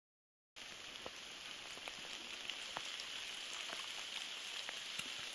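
Rain falling: a steady soft hiss with scattered single drops ticking. It starts after a brief silence about half a second in.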